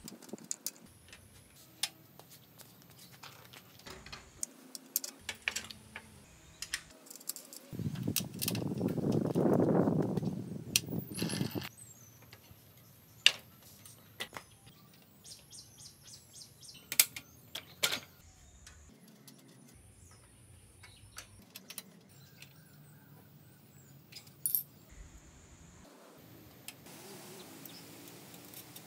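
Scattered metal clicks and clinks of bolts, nuts and hand tools as a child's bicycle is assembled, with the training wheel and seat clamp bolts being fitted. About eight seconds in, a low rushing sound swells for some three seconds.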